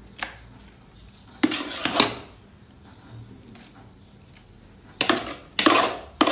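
Metal pots and a serving utensil clattering as cooked rice is scooped from one pot and layered onto the beef in a large aluminium cooking pot. There are a few separate clanks: one right at the start, a cluster about a second and a half in, and another near the end.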